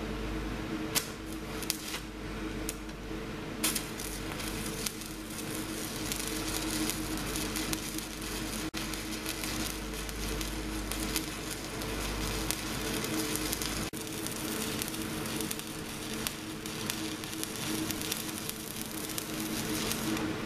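MIG welder arc welding steel harvester-bar sections together: a few short strikes in the first four seconds, then a long run of crackling hiss with two brief breaks.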